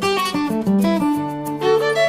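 Background music: plucked guitar and violin playing a melody, with a low note held from about a second in.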